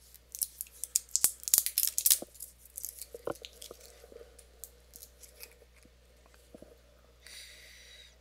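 Plastic safety seal being picked at and torn off the neck of a hot sauce bottle: a dense run of sharp crackles and crinkles in the first two seconds, then scattered clicks. A short sniff at the open bottle near the end.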